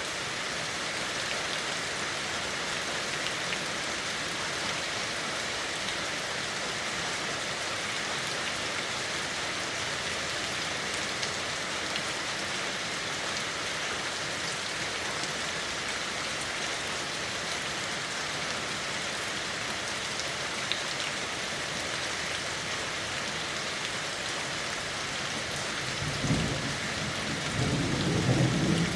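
Steady rain falling, an even hiss of many drops. Near the end a low rumble of thunder rolls in and grows louder.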